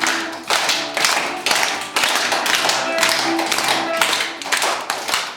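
Music with sharp claps about twice a second, in time with the beat.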